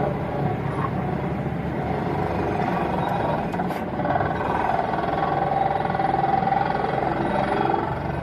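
Excavator-mounted vibratory pile hammer running over the excavator's diesel engine, a steady, rapid buzzing. A whining tone comes in about halfway and holds until near the end.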